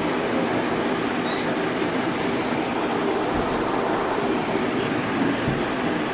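A dry-erase marker squeaking and rubbing across a whiteboard in a few short strokes, over a steady rumbling background noise.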